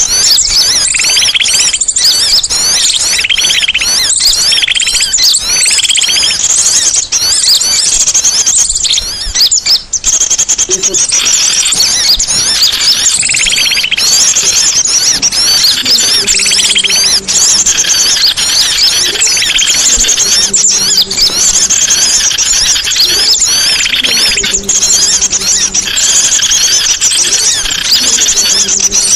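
Loud, dense chirping and trilling of songbirds, many high, fast calls overlapping without a break.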